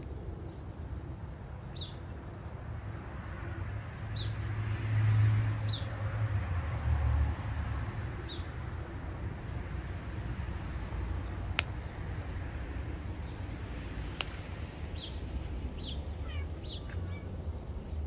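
Backyard ambience: a low rumble that swells for a few seconds, with short high chirps from small birds now and then and two sharp clicks in the second half.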